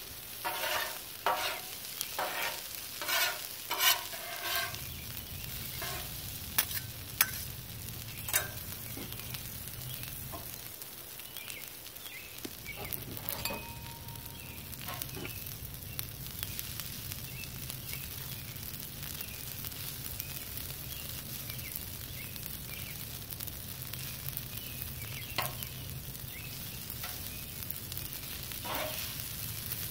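Noodles and vegetables sizzling on a Blackstone steel flat-top griddle while being stir-fried, with metal spatulas and tongs clacking and scraping on the cooking surface, the clacks coming fast in the first few seconds and only now and then afterwards. A low hum comes in after about four seconds, drops out briefly, and resumes.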